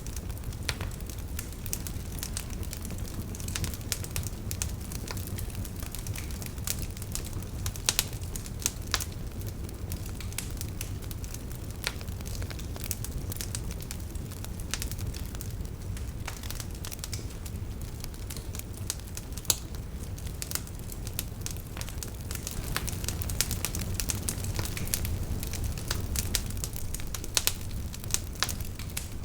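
Wood fire burning in a fireplace: a steady low rumble with irregular crackles and sharp pops throughout, a few louder pops standing out.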